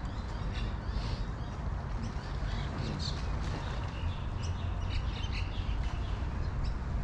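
Birds chirping and calling, in scattered short notes, over a steady low rumble.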